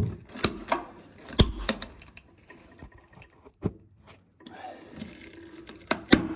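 Scattered sharp knocks and clicks of wooden floorboards being prised and worked loose, with a heavier thud about a second and a half in.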